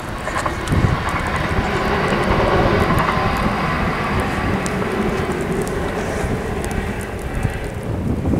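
SNCB AM08 electric multiple unit passing along the line, a steady rush with a faint electric whine that swells mid-way and eases off. Wind buffets the microphone throughout.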